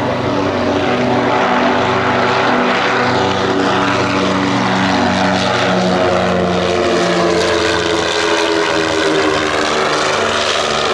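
Piaggio P-136-L2 twin piston-engine pusher amphibian running its engines and propellers loudly and steadily as it departs. The engine tone shifts slowly in pitch.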